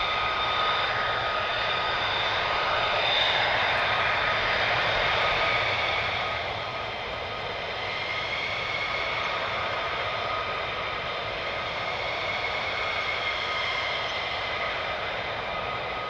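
F-35 Lightning II fighter's single Pratt & Whitney F135 jet engine whining steadily at taxi power, a high whistle over a rushing noise. It gets a little quieter about six seconds in.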